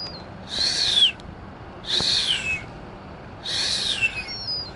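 Herring gull giving a high whistled call three times, each note sliding down in pitch, with a faint higher whistle near the end.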